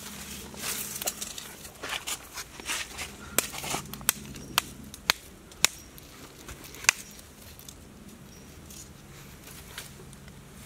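A stick being worked through dry leaf litter and twigs on the forest floor, crackling and rustling. Between about three and seven seconds in there is a run of sharp clicks, about two a second, and after that it quietens.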